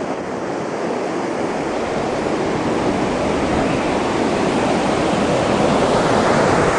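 Ocean surf breaking and washing up the beach, a steady rushing noise that grows gradually louder.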